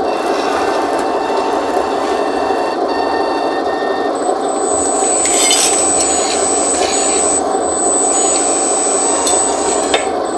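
Hydraulic pump of a 1:14-scale RC skid steer loader (Double E Bobcat E116) running with a steady whir, with a thin high whine joining about four seconds in.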